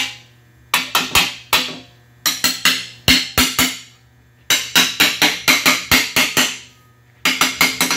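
Ball-peen hammer tapping a 316 stainless steel rudder top plate down over its shaft, seating the tabs in their slots. The strikes come in four quick runs of ringing metal taps with short pauses between them.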